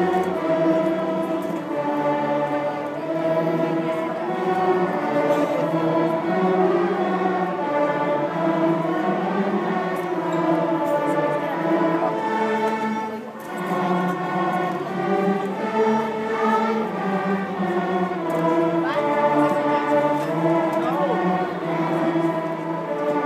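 School string orchestra of violins, violas, cellos and double basses playing a piece in held, sustained notes.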